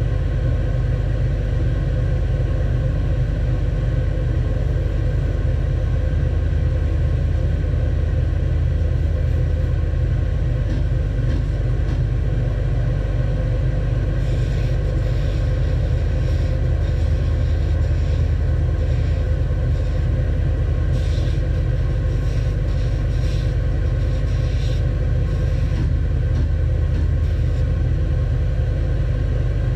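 Stationary edge belt sander running with a steady low hum. From about halfway through come short scratchy hisses as small wooden tiles are pressed by hand against the moving belt.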